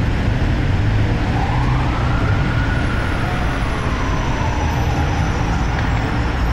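New York City street traffic: a steady low rumble of engines and tyres, with a distant siren wailing, rising about a second in and then slowly falling away.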